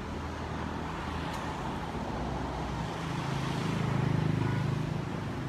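Road traffic noise with a motor vehicle's engine passing close, swelling to its loudest about four seconds in and then fading back.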